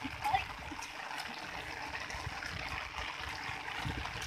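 Steady watery hiss of rain falling on a flooded rice paddy and water running through it.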